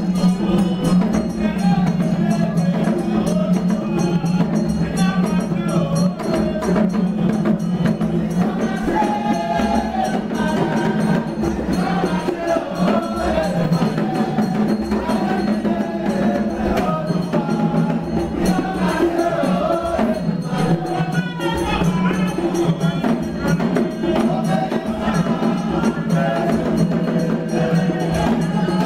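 Itsekiri traditional dance music: voices singing over hand percussion with a steady knocking beat.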